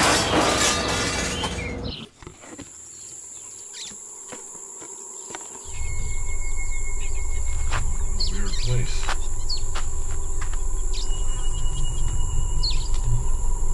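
A music cue fades out about two seconds in. After a short lull, outdoor bush sounds take over: insects with a steady high drone, and a few bird chirps. A low rumble of wind on the microphone starts about six seconds in.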